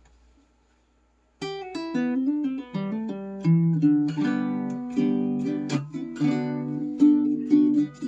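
After about a second and a half of near silence, a home-built StewMac kit baritone ukulele starts playing: a few picked notes, then strummed chords that ring out.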